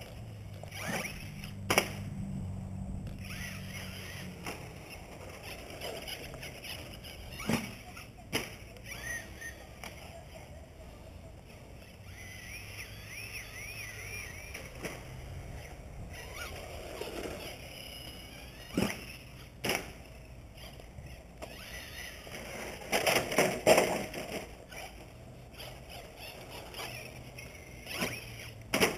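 Traxxas 2WD Slash RC short-course truck being driven hard: its electric motor whines, rising and falling in pitch with the throttle, with a handful of sharp knocks from landings and crashes. The loudest burst of whine and knocks comes a little over twenty seconds in.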